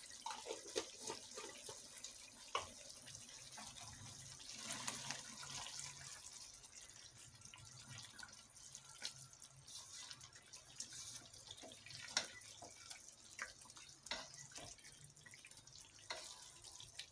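Thick chicken gravy simmering and being stirred with a spoon in a pot: faint wet bubbling and sloshing over a light hiss, with scattered small clicks of the spoon and popping bubbles.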